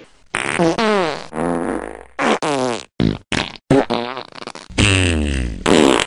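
A rapid string of about ten fart sounds of differing length and pitch, several sliding down in pitch, each starting and stopping abruptly.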